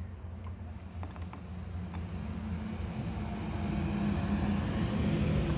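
Low vehicle rumble growing gradually louder, with a few faint clicks from a wrench working a battery terminal nut.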